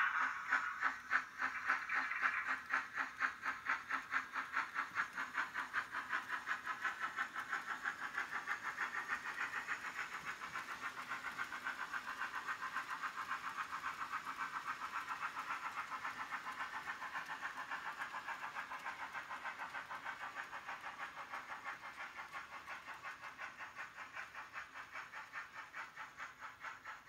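Model steam locomotive and wagons running on the layout's track, giving a fast, even, repeating beat that slowly fades as the train moves away.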